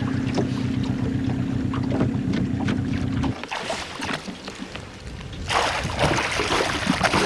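Small boat's outboard motor running steadily at trolling speed, cutting off suddenly about three seconds in. From about five and a half seconds, a hooked pike thrashes and splashes at the water's surface.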